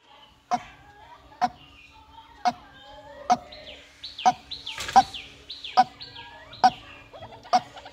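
White-breasted waterhen calling a steady series of short, loud, clucking notes, about one a second, with fainter falling high notes in between.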